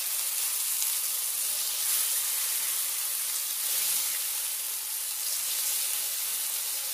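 Brinjal slices sizzling steadily as they shallow-fry in hot coconut oil in a nonstick pan, while they are turned over with a wooden spatula and a fork.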